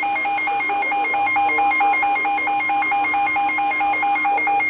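A weather radio receiver's alert alarm: a rapid two-pitch beeping about five times a second. Under it runs the steady NOAA Weather Radio 1050 Hz warning alarm tone, which signals that a severe thunderstorm warning is being broadcast. Both stop near the end.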